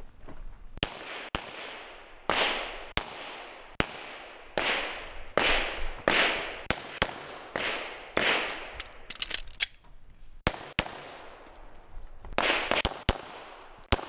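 9mm Glock 34 pistol shots fired in quick pairs and short strings, with brief pauses between strings. Each shot is a sharp crack, several trailed by a short echo.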